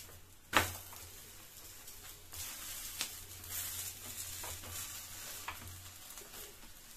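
Onion and mint paratha sizzling in desi ghee on a hot tawa while a flat metal spatula presses it down. There is a sharp clack of the spatula on the tawa about half a second in, and a few lighter taps later.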